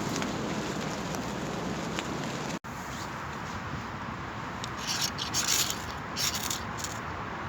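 Steady rain pattering, cut off abruptly about two and a half seconds in. Then, over a quieter background, several short bursts of rustling and scraping from something being handled.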